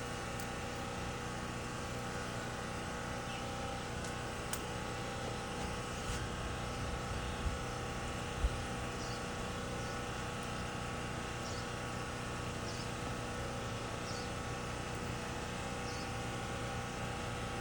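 A steady machine hum, with two short soft knocks about a second apart near the middle and faint high chirps now and then.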